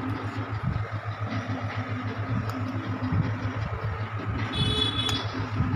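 A steady low hum from a running motor, with a few faint clicks and a brief high ringing sound near the end.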